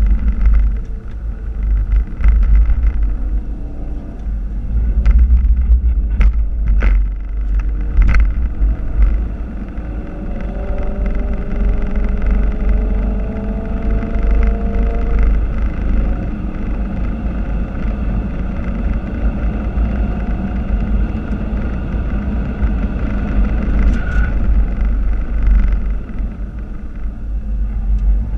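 Ford Focus RS mk3's 2.3-litre turbocharged four-cylinder engine heard from inside the cabin at speed, under heavy wind and road rumble. The engine note rises steadily for several seconds near the middle, and a few sharp knocks come about a third of the way in.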